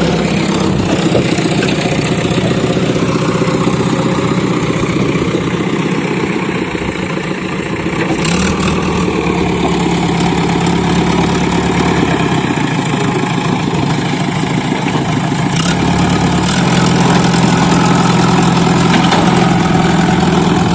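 Heavy diesel engine running steadily, its note shifting about eight seconds in and again around sixteen seconds.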